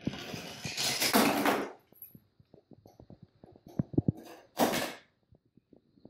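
Parts of a homemade Rube Goldberg machine running in sequence: a wooden toy train rolls down its wooden track with a loud clattering rush in the first two seconds. Scattered light clicks and knocks follow as a K'nex cart rolls along metal rod rails, with another short rush of noise near the end.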